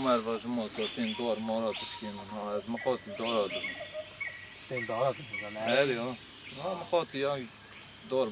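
Men talking in conversation, over steady high chirring of crickets in the background.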